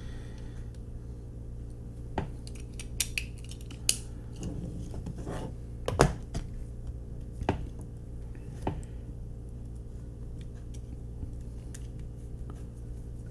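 Scattered small clicks and taps of a diecast toy car and its small metal and plastic parts being handled on a tabletop, the sharpest about six seconds in, over a steady low hum.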